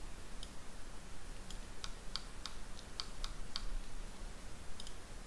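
About a dozen light, uneven clicks from a computer keyboard and mouse, over a faint low hum.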